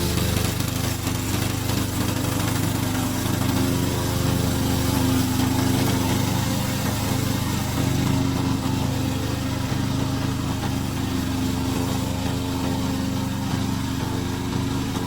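Remote-control slope mower running steadily, its engine giving an even, continuous drone.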